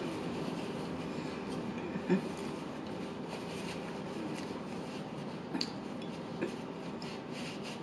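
Quiet eating sounds: chewing and handling of fast food, with a few faint clicks about two, five and a half and six and a half seconds in, over a steady background hiss.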